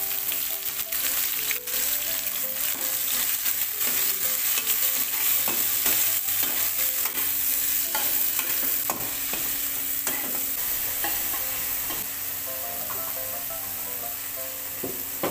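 Sliced tomato and garlic sizzling in hot oil in a nonstick wok, stirred with a metal spatula that scrapes and taps against the pan. The stirring stops about eleven seconds in, and the frying sizzle carries on alone.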